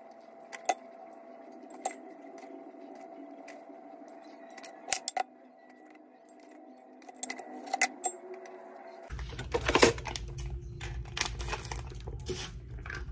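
Light clicks and clinks of a metal spoon against a ceramic bowl over a faint steady hum. About nine seconds in, after a cut, kitchen scissors snip open a plastic soy sauce pouch.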